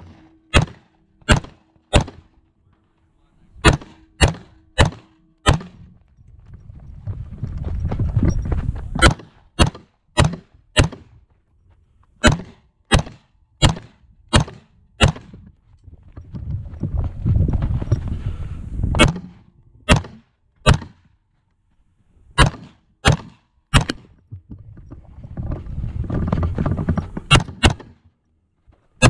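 AR-15 rifle in .223/5.56 firing strings of rapid shots, about two dozen in all, in quick groups of two to six with short pauses between, and a low rumbling noise in the pauses.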